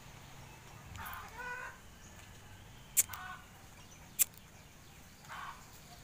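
A few faint, short animal calls in the background, and two sharp clicks about three and four seconds in, louder than anything else.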